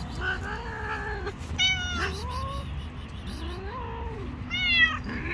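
Cat meowing repeatedly, about six calls of varying pitch: some longer and lower, some short and high, the loudest near the end.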